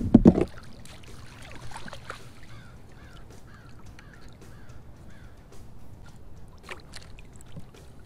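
A short, loud water splash right at the start as a spotted bay bass is scooped into a landing net at the surface. Then a bird calls in the background, a quick run of short falling notes, about two a second.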